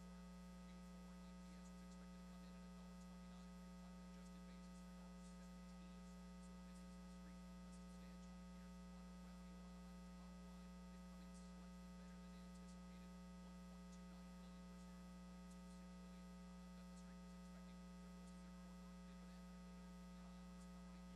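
Near silence with a steady electrical mains hum, one low buzzing tone and its overtones, unchanging throughout.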